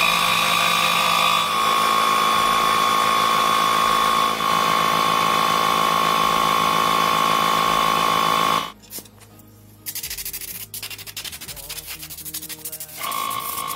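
Belt-driven twin-cylinder piston air compressor running with a steady whine and hiss. The sound cuts off abruptly about nine seconds in, gives way to a few seconds of uneven, lower noise, and the steady running sound returns near the end.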